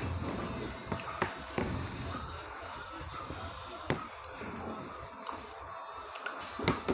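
A metal spoon scraping and tapping on a plastic plate as the last scraps of fried noodles are gathered up, giving a string of sharp, irregular clicks.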